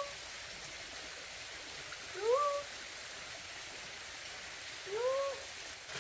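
Cat meowing: short rising calls, the end of one right at the start, then two more a little over two seconds apart.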